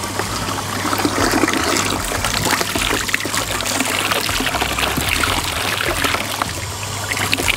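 Water running from a garden hose and splashing over a face and hands as soap lather is rinsed off: a steady pour with irregular splatters throughout.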